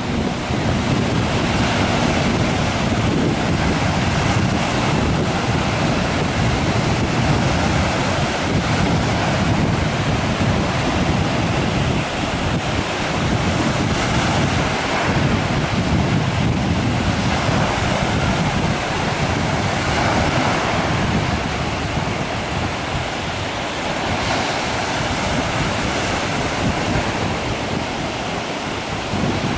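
Small sea waves breaking and washing up a sandy beach in a steady rush, with wind buffeting the microphone.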